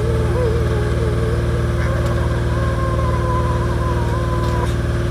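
An engine running steadily at idle, with a wavering higher tone over it.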